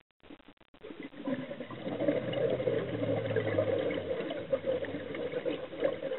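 Scuba diver exhaling through a regulator: a rush of gurgling bubbles that starts about a second in and keeps going.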